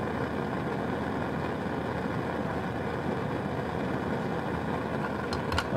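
Steady low roar of a lit Bunsen burner flame, with a few light clicks near the end.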